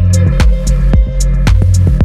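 Background music with a steady beat over deep bass notes.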